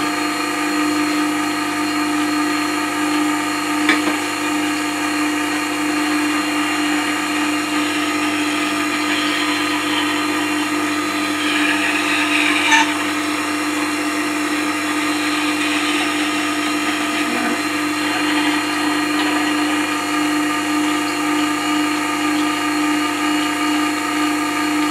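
Record Power WG250 wet stone grinder running steadily, its motor giving a constant hum with a clear steady tone. Around the middle a spindle roughing gouge held in the jig is brought to the turning wet stone, adding a brief rasp of steel on stone and a sharp click.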